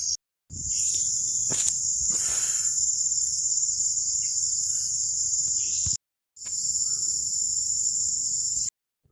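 Insects droning in a steady, loud, high-pitched chorus that cuts off abruptly twice. There is a short click about a second and a half in, a brief rustle soon after, and a low rumble underneath.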